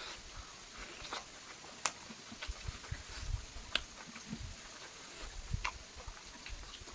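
A person chewing and biting chicken, with scattered sharp mouth clicks and crunches and soft low thumps.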